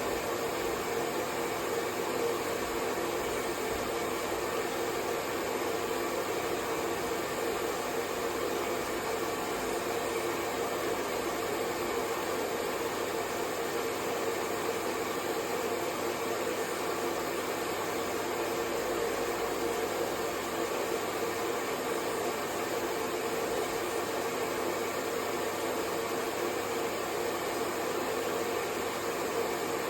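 Hair dryer running steadily: an even rush of blown air with a faint steady motor tone, at a constant level.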